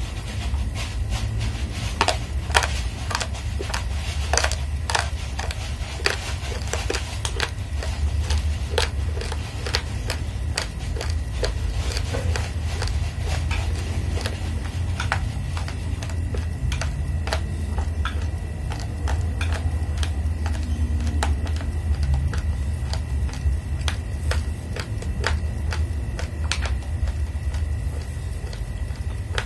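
Raw red rice grains crunched between the teeth, a long run of sharp little cracks, thick in the first half and thinning out later. A steady low hum runs beneath.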